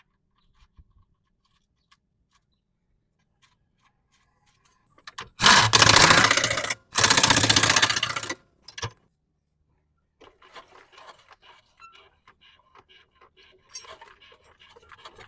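Two loud bursts of hissing spray, each about a second and a half long with a short gap between them, followed by faint clicks and handling noises.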